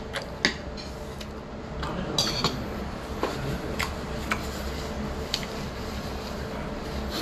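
A person chewing a mouthful of food, with scattered small clicks and taps, over a steady low hum.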